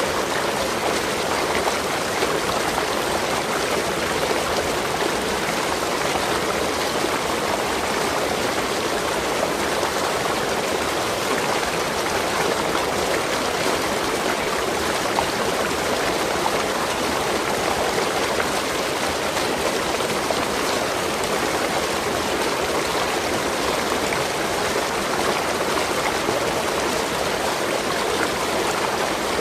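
Waterfall: falling water splashing in a steady, even rush, with no change.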